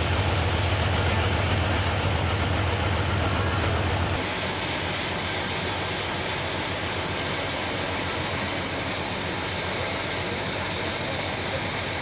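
Sawmill machinery running at a log-sawing mill: a steady mechanical noise with a fine rapid rhythm, and a strong low hum that drops away about four seconds in.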